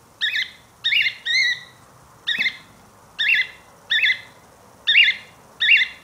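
Cockatiel calling in a run of about eight short, shrill chirps, each one quickly rising and falling in pitch, spaced about half a second to a second apart.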